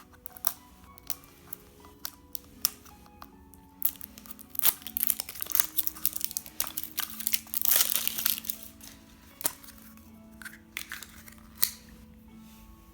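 Plastic toy packaging crinkling and tearing open: a few sharp handling clicks, then a dense crinkle for several seconds, loudest just past the middle, then a few more clicks. Soft background music plays underneath.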